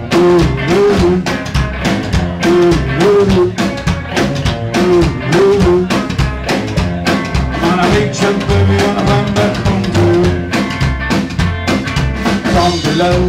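Live band playing an instrumental passage: a drum kit keeping a steady, driving beat with snare and rimshot hits, under upright double bass and hollow-body electric guitar.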